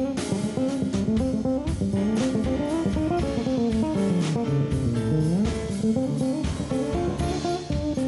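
A jazz band playing live: an instrument plays a melody line that winds up and down over a dense bass and rhythm accompaniment.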